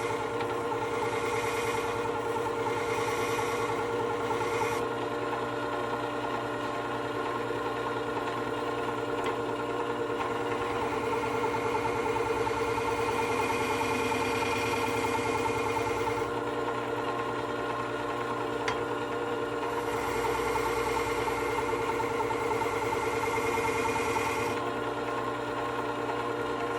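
Work Sharp WS3000 sharpener's motor running steadily, spinning a rouge-loaded honing pad while a chisel edge is honed against it. A higher hiss over the steady hum comes and goes several times as the blade is worked.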